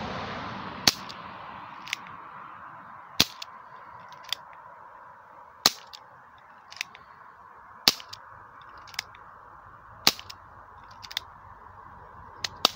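Umarex Legends S25 CO2 revolver firing six sharp shots, one about every two seconds. A fainter click follows each shot about a second later, and a steady hiss runs underneath.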